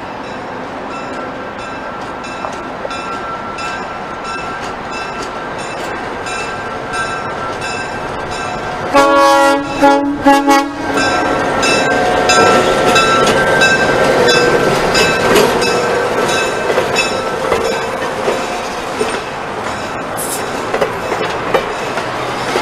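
EMD SW8 switcher locomotive with its eight-cylinder 567 diesel running, drawing closer at low speed with wheels clicking over the rail joints. Midway it sounds its horn in a few short blasts, then it passes close by, louder, followed by the passenger cars rolling past.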